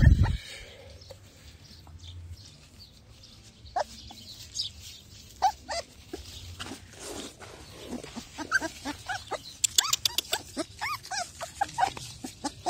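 Puppies whimpering and yelping in many short, high, bending whines, coming thick and fast in the second half. There is a low thump right at the start.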